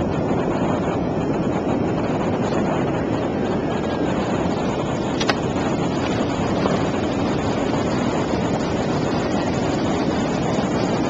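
Steady wind buffeting the microphone over the rush of breaking ocean surf, with a single sharp click about five seconds in.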